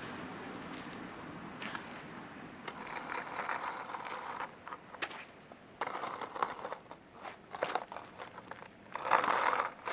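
Skateboard wheels rolling and scraping over a rough paved path, with a run of sharp clicks midway. The rolling is loudest near the end.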